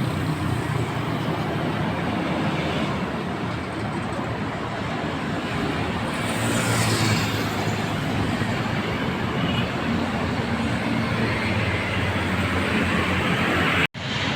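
Steady road traffic passing, with engine hum and tyre noise; one vehicle passes close about halfway through with a falling swish. The sound drops out for an instant near the end.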